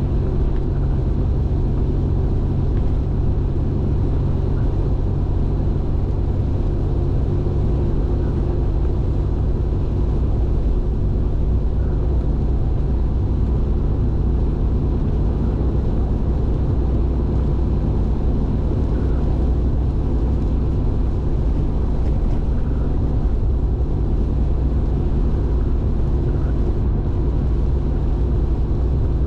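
Steady road and engine noise of a car cruising on an expressway, heard from inside the cabin: an even low rumble.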